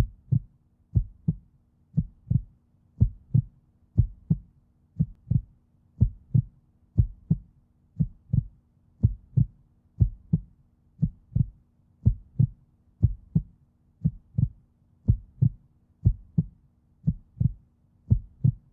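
Heartbeat sound effect: a steady double thump, lub-dub, about once a second.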